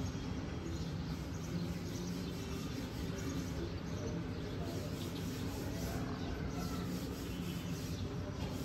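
Steady low background hum with faint bird chirps now and then.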